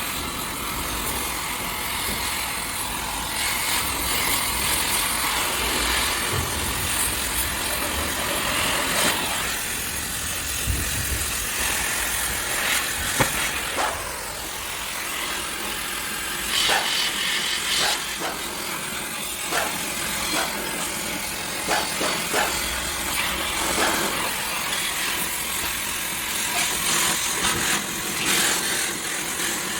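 Car-disassembly work noise: a steady hiss with scattered clicks and knocks, and a brief brighter hissing burst a little past halfway.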